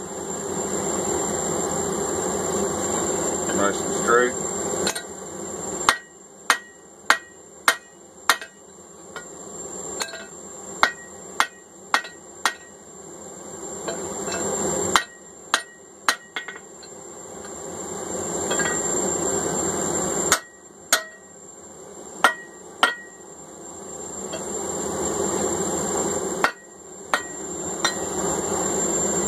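Hand hammer blows on hot steel over an anvil, in short bursts of a few strikes each, with a bright ring on every blow. A steady rushing background fills the gaps between the bursts.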